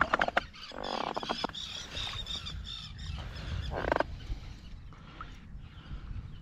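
A small bream splashing and flapping at the water's surface as it is swung in and unhooked, with a quick run of sharp slaps at the start. A bird calls in the background.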